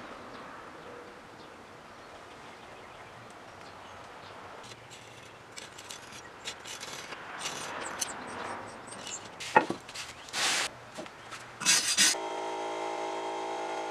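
Hand scraper scraping lifted old paint off the band saw's cast-iron frame: a run of scratchy, rasping strokes, loudest in the last few seconds. Near the end a steady humming tone with several pitches takes over.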